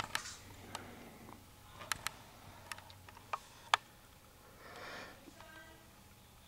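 Quiet room with scattered small, sharp clicks and ticks from a small handheld camera being handled and its buttons pressed. A brief soft hiss follows a little before five seconds in.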